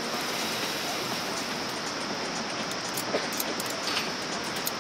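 Steady rush of a whitewater river's rapids, with a few faint clicks in the second half.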